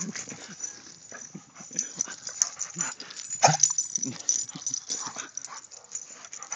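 A dog making short, irregular vocal noises while playing, with scuffling and handling noise mixed in; the loudest sound comes about three and a half seconds in.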